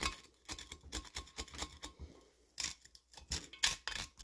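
Flathead screwdriver scraping carbon deposits out of the intake port of a Kohler Magnum M18 cylinder head: irregular short scratching and scraping strokes of metal against crusty carbon.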